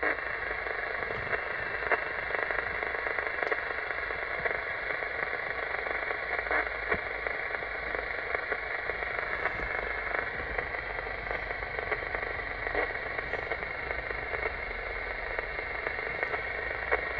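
Radio transceiver's speaker giving a steady hiss of static on an empty channel, with no station answering the call. It starts suddenly and cuts off near the end.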